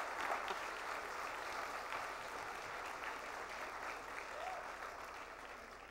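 Audience applauding in a hall, the clapping slowly dying away.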